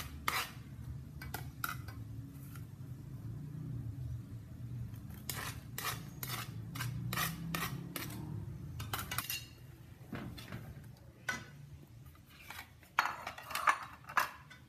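Metal utensils clinking and knocking against a cooking pot, a string of short sharp clinks with the loudest ones near the end. A low steady hum runs under the first ten seconds or so.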